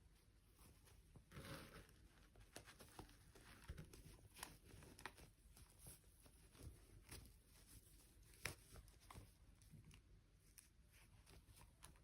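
Faint handling noises: soft rustling with scattered small clicks and taps.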